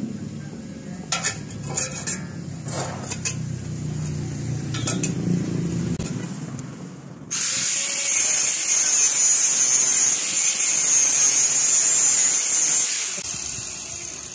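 Angle grinder working on steel: a loud, even hissing grind starts suddenly about seven seconds in, holds for about six seconds, then tapers off. Before it, a few sharp metal knocks sound over a low hum.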